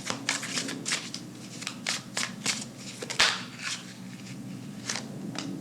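A deck of oracle cards being shuffled by hand: a quick, irregular run of card flicks and riffles, with a sharper snap a little over three seconds in.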